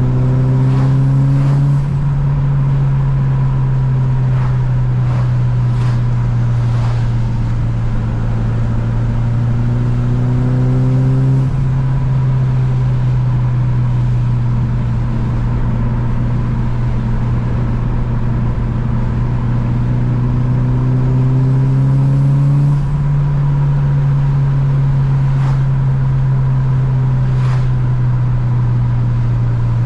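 Tuned Mitsubishi Lancer Evo 8's turbocharged 4G63 inline-four running under way while driving. The engine note climbs slowly with speed and drops at a gear change three times: about two seconds in, near the middle, and about three-quarters of the way through.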